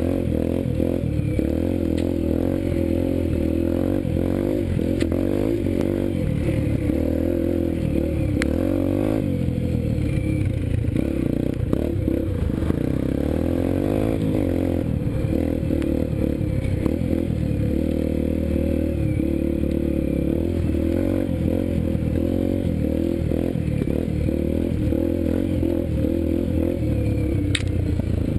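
Yamaha TT-R125LE dirt bike's single-cylinder four-stroke engine running along a rough trail, its pitch rising and falling with the throttle and gear changes, with a few sharp knocks from the bumpy ground.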